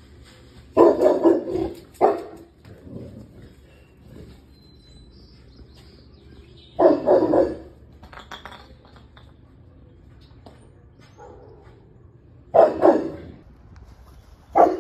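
Boerboel dogs barking in loud short runs of a few barks, with pauses of several seconds between runs: territorial barking at deer.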